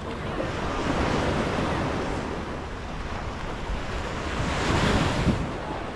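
Surf washing onto the beach, mixed with wind buffeting the microphone. It swells about a second in and again near the end.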